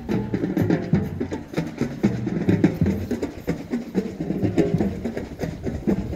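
Marching band drumline playing a marching cadence: quick, steady drum strokes over deep bass-drum notes.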